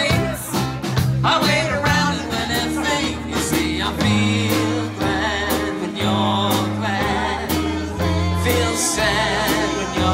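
Live band playing: saxophone over a bass line and a steady drum beat, with a singer.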